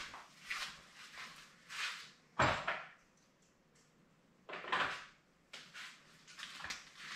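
Scattered knocks and scuffs of someone moving about and handling things in the garage, the loudest a sharp knock about two and a half seconds in and another near five seconds.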